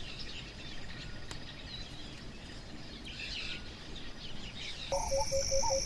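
Nature ambience: small birds chirping over a low, even background rumble. About five seconds in it changes abruptly to steady insect trilling with a rapid, evenly pulsed call.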